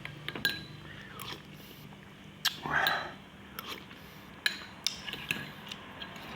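Eating instant noodle soup: scattered clicks of utensils on the bowl and chewing, with one louder rush of noise a little before halfway through.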